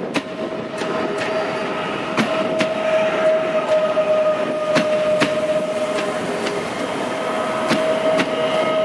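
PESA Dart electric multiple unit rolling slowly past, with a steady whine and irregular sharp clicks from the wheels over the rail joints.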